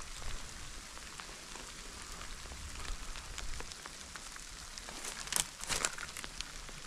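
Light rain pattering steadily, with a few brief rustles about five seconds in.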